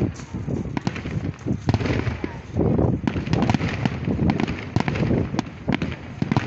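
Aerial firework shells bursting: a quick, irregular string of bangs and crackles. Heavy wind rumble on the microphone runs underneath.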